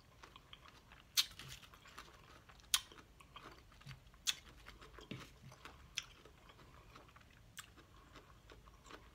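Close-miked chewing of a mouthful of lettuce salad, with a sharp mouth click or crunch about every second and a half.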